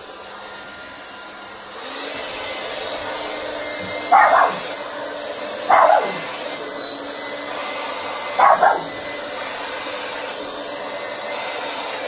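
Hand-held hair dryer switched on about two seconds in and running steadily, blowing on wet acrylic paint. A dog barks three times over it, a couple of seconds apart; the barks are the loudest sounds.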